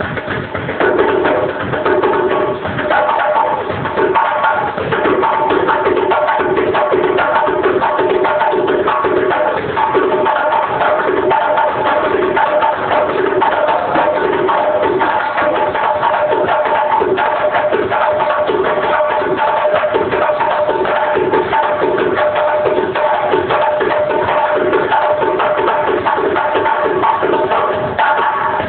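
Live band playing, drums and percussion keeping a steady beat under sustained held notes. Recorded through a mobile phone, so the sound is thin with no high end.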